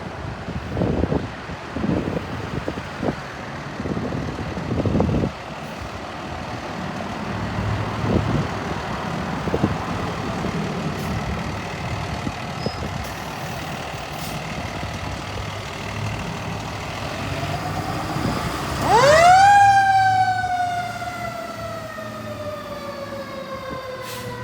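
Fire engine's motor and road noise rumbling. About 19 seconds in, its mechanical siren winds up quickly to a loud high wail and then winds slowly down in pitch.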